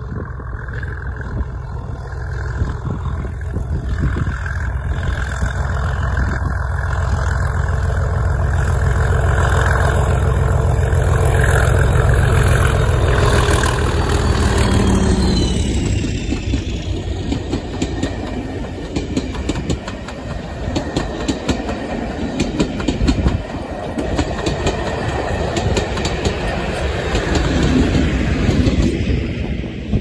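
Class 37 diesel locomotives, English Electric V12s, hauling a passenger train past, their engine rumble building as they approach, loudest about halfway and dropping in pitch as they go by. Then the coaches roll past with a steady clickety-clack of wheels on the rails, with a brief swell near the end before the train fades.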